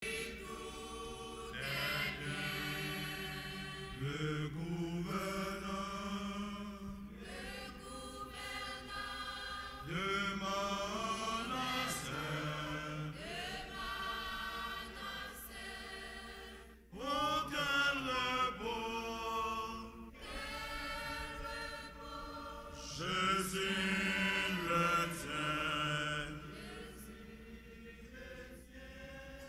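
A choir of women singing together in long phrases, with short pauses between some of them.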